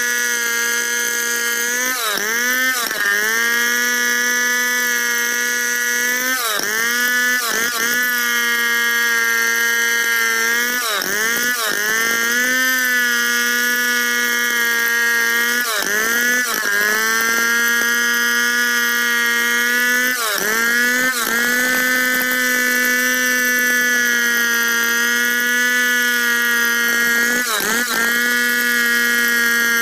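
Large Stihl two-stroke chainsaw running at full throttle while ripping lengthwise along a log in freehand milling. Its steady high engine note dips briefly in pitch and climbs back again, about ten times.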